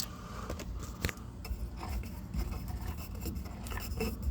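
Small scrapes and clicks of handling, with test-meter probes rubbing on the furnace's low-voltage thermostat terminals, over a steady low hum.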